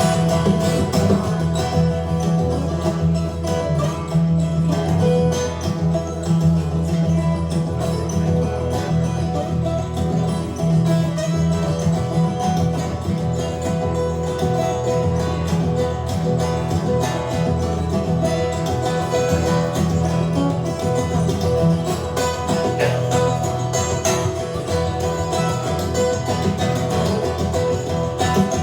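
Live instrumental music on plucked acoustic guitar, playing steadily.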